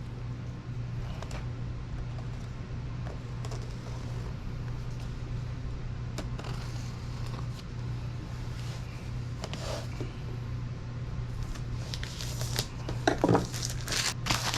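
A sealed cardboard product box being opened by hand: scattered faint scrapes and clicks as the seal is cut and the box handled, with a cluster of louder scraping and rustling near the end, over a steady low hum.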